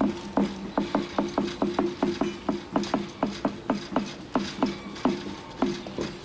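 Rapid, rhythmic mechanical clacking, about five strokes a second and slightly uneven, each with a short ringing tone, from the ET 91 glass electric railcar moving slowly while shunting.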